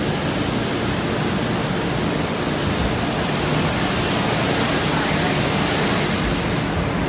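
Steady rushing noise of a light rail train wash, its water spray and brushes working on the outside of the railcar, heard from inside the driver's cab.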